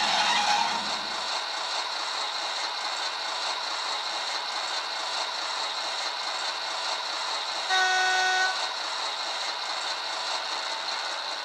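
Sound decoder (ESU LokSound V4) in an HO model of an SNCF X 5800 diesel railcar playing its diesel engine sound steadily through the model's small onboard speaker. One short horn blast sounds about 8 s in and is the loudest thing heard.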